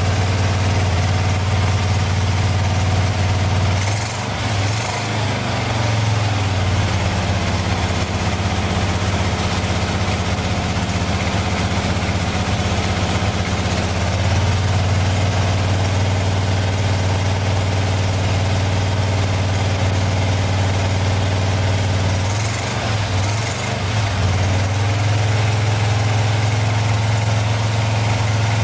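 Pontiac 462 cubic-inch V8 (a 1966 421 bored and stroked) with Tri-Power triple two-barrel carburettors, running on an engine test stand with a steady low rumble. Its engine speed shifts about four seconds in and again about twenty-three seconds in.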